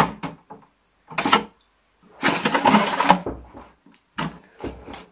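Plastic basket of an Aquael Ultramax 2000 canister filter being handled while foam sponges are pressed into it: a few sharp plastic knocks and clatters, with a longer rattle near the middle.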